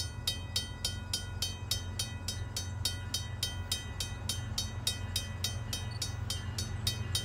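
Railway level-crossing bell ringing steadily at about four strikes a second, the crossing warning activated for an approaching train. A steady low rumble runs beneath it.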